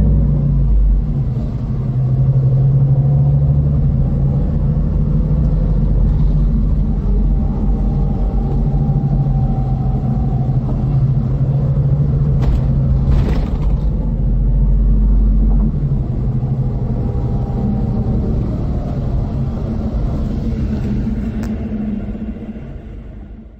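Scania K440 coach's diesel engine running, a deep, steady sound whose pitch shifts slightly up and down. A click and a short hiss come about twelve to thirteen seconds in, and the engine sound fades out near the end.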